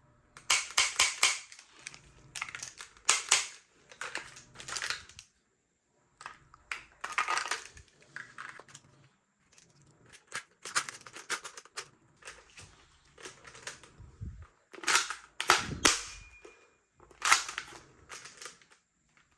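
Spring-powered toy gun being handled and fired: a string of sharp clicks and snaps in irregular clusters.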